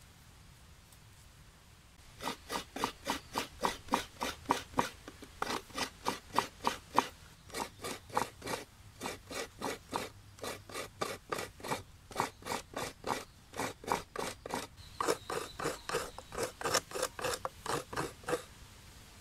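Fresh coconut half being grated on the serrated blade of a wooden stool coconut scraper: a steady run of rough rasping strokes, about three a second. The strokes start about two seconds in and stop near the end.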